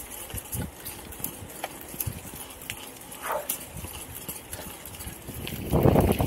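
Footsteps of someone walking on an outdoor path, an uneven series of soft thuds, with a louder rustle near the end.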